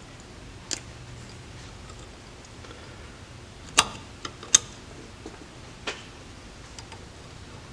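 Sharp little metal clicks and taps as a vacuum advance unit's arm is fitted to a distributor's breaker plate: one just under a second in, a quick cluster of three around the middle, and one more a little later.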